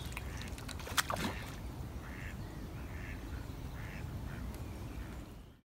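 Waterfowl by the lake calling in short repeated calls over a steady wind rumble on the microphone, with a brief splash about a second in. The sound cuts off just before the end.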